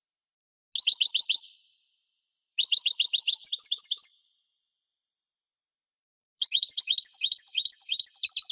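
European goldfinch singing in three phrases of rapid, high twittering notes: a short run about a second in, a longer one that climbs to higher notes around three to four seconds in, and a long fast run starting near the end.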